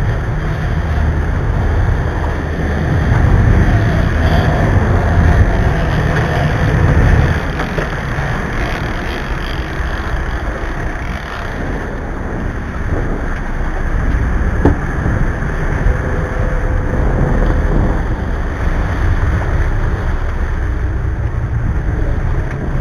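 Cabo 40 sportfishing boat running: a steady low engine rumble under the rush of churning white water at the stern, with wind buffeting the microphone. A single sharp click about two thirds of the way in.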